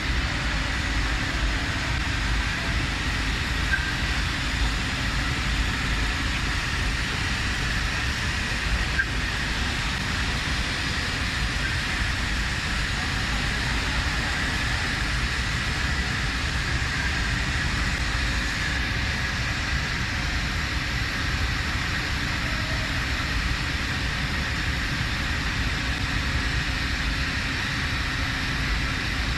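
Flotation machines running: a steady mechanical rumble with a hiss above it, unchanging throughout.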